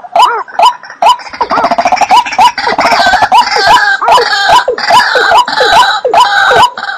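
Waterbird calls: a run of repeated short, arched notes, about three a second, that thickens about a second in into a loud, raucous chorus of overlapping croaking calls, thinning back to single repeated notes near the end.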